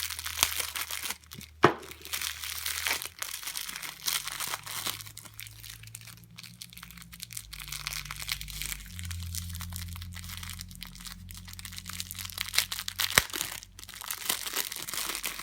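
Packaging being unwrapped by hand: continuous crinkling and tearing of wrapping material, with a few sharp clicks, the loudest near the end.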